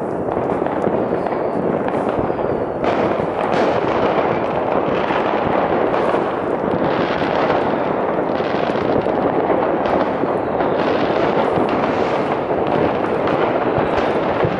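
Fireworks and firecrackers going off in a dense, unbroken barrage of crackles and bangs, loud throughout with no pause.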